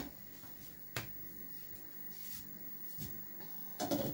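Quiet kitchen with a single sharp click about a second in and a short clatter of knocks near the end, as things are handled and set down.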